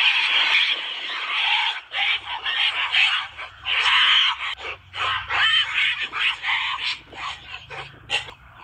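Gorillas calling: a rough continuous call for about the first two seconds, then a string of short, choppy calls.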